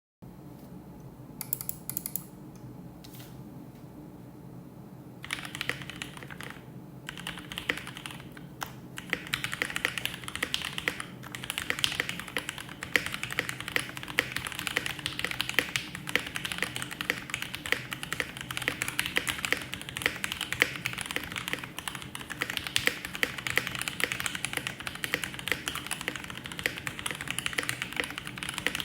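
Typing on a mechanical keyboard with Gateron Ink Black V2 linear switches, lubed with Krytox, and GMK ABS keycaps, in an NK65 Entry Edition plastic case. A few single keystrokes come first, then fast continuous typing from about five seconds in.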